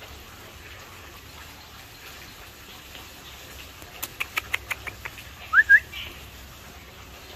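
A bird chirping: a quick run of short, sharp chirps about four seconds in, then two loud rising whistled notes.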